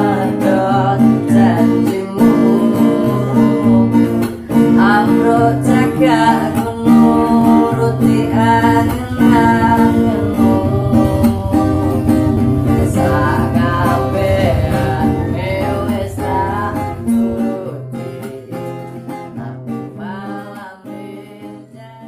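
A man singing to his own strummed acoustic guitar. The song gradually fades out over the last several seconds.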